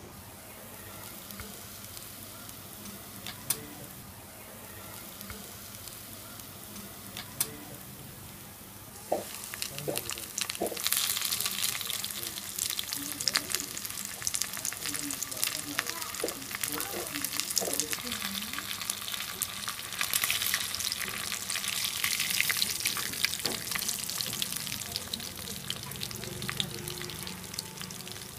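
A rava-coated fish slice shallow-frying in hot oil in an iron pan, the oil sizzling and crackling. It is fairly quiet at first, with a couple of sharp clicks. About a third of the way in, the sizzling suddenly turns loud as the fish sits in the oil, and it stays loud.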